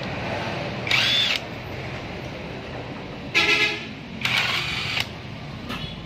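A steel rod scraping and prying against the oil pan of a 1982 Mitsubishi L300 petrol engine, in short screeching metal-on-metal strokes about every second or so; one stroke about three and a half seconds in gives a buzzing, pitched squeal.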